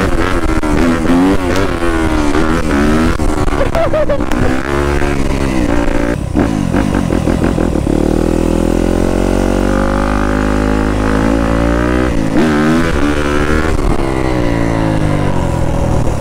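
Yamaha YZ250F four-stroke single-cylinder dirt bike engine, its revs rising and falling again and again as the throttle is worked to hold wheelies. About halfway through it runs more steadily for a few seconds, then the revs swing up and down again.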